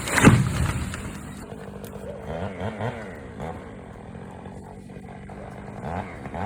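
Chainsaw engine revving briefly at the start, then running steadily at a low idle.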